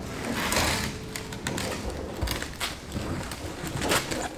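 A boxed roll cart on its pallet being shoved across a second wooden pallet: wood scraping at first, then scattered knocks and thuds.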